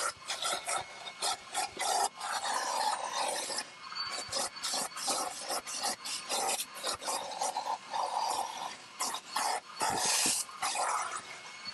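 Crevice tool of a Prolux wet/dry vacuum rubbing and rasping across car floor carpet in quick, irregular strokes as it vacuums.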